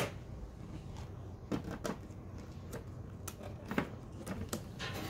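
Cardboard toy packaging being handled and pulled apart: scattered light knocks, taps and scrapes at irregular intervals.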